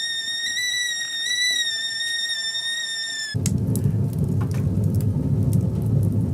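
Stovetop kettle whistling at the boil, one steady slightly wavering tone, which cuts off suddenly about three seconds in. Then wood burning in a small metal stove, a low rumble of the fire with sharp crackles and pops.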